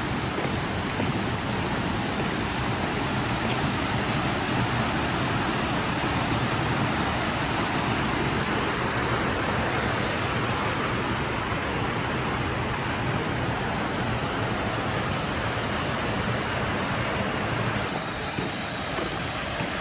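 Floodwater rushing steadily, an even noise with no pitch that changes slightly near the end.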